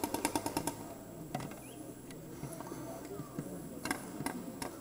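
Paintball markers firing: a quick string of shots, about ten a second, at the start, then a few single shots near the end, with voices murmuring in the background.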